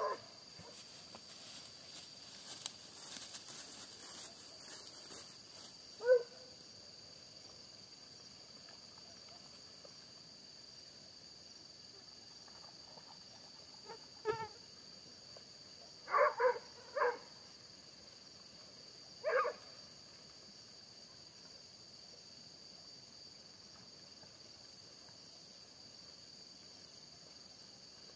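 Hunting dogs baying on a trail in the distance, a few short, spaced barks: one about six seconds in, a quick cluster of three around sixteen to seventeen seconds, and one more soon after. Under them runs the steady high chirring of night insects.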